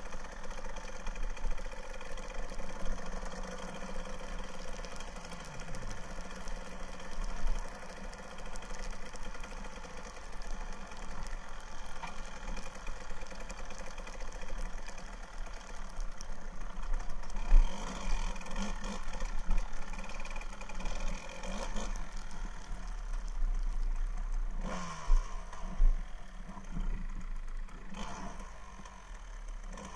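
1999 Kawasaki KDX220R's single-cylinder two-stroke engine running as the dirt bike is ridden, muffled through the action camera's case, its revs rising and falling in places. A few sharp knocks come about 17 and 25 seconds in.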